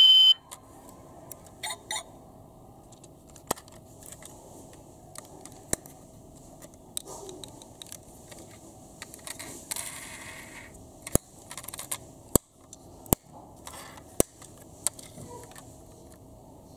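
Sharp clicks and snaps of a die-cast metal Chevrolet Camaro model car's hinged doors and panels being opened and shut by hand, about ten clicks spread irregularly, with light rubbing of fingers on the body. A loud electronic tone cuts off right at the start.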